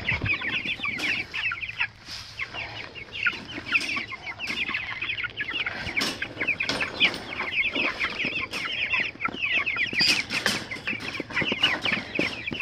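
A crowd of three-week-old meat chicks peeping constantly, many short high downward-sliding peeps overlapping. Sharp clanks and rattles of a wire dog crate being handled cut in now and then, the loudest about six and ten seconds in.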